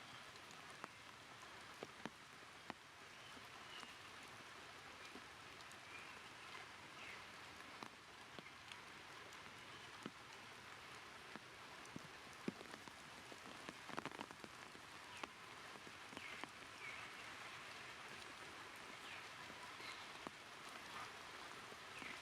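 Faint steady hiss with scattered sharp ticks, and short high chirps every few seconds.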